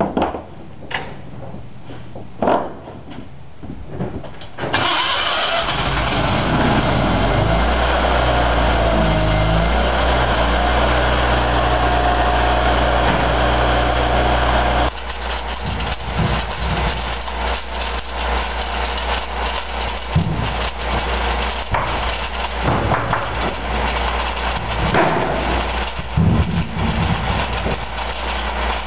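A few knocks and clatter, then about five seconds in a portable engine-driven welder starts up and runs steadily. About halfway through, this gives way to the crackle and hiss of an electric welding arc, stick welding.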